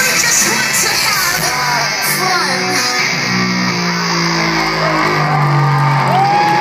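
Live rock band playing through large stage speakers, heard from within the crowd, with long held guitar notes from about halfway through and crowd shouting.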